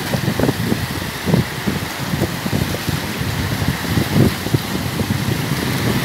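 Wind buffeting the phone's microphone in gusty low rumbles, over the steady wash of small waves breaking on the shore.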